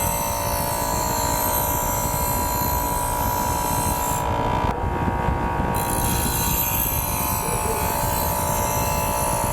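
A power tool running steadily with a constant whine, its pitch lifting slightly about halfway through.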